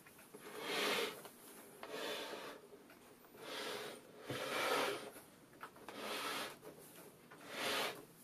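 Wooden cabinet of a Teac A-4000S reel-to-reel deck slid and turned round on a workbench: a series of soft rubbing scrapes, about one every second and a half.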